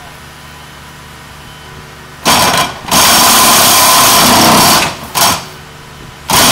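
Pile-driving hammer pounding a bridge pile in rapid bursts: a short burst a couple of seconds in, then one of about two seconds, then two short ones, over a steadily running machine engine.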